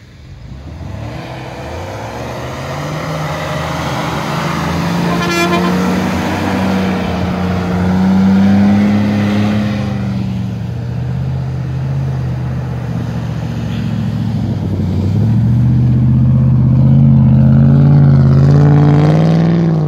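Off-road 4x4 engines working hard through deep snow. A Toyota Land Cruiser 80-series pulls past, rising in pitch to a peak about halfway, then eases off. A Land Rover Discovery then revs up close by, loudest near the end.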